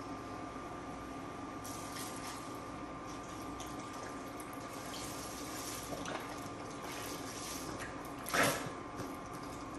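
Beef stock pouring from a carton into a dutch oven full of vegetables, a steady stream of liquid, with one brief louder sound about eight seconds in.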